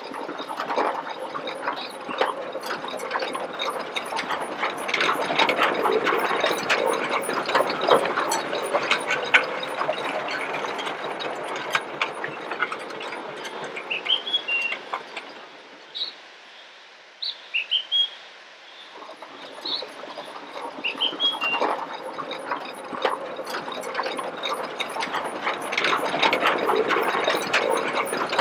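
Farm steam tractor chugging and clanking as it approaches, the clatter dropping away for a few seconds past the middle and then coming back. Short bird chirps sound several times over it.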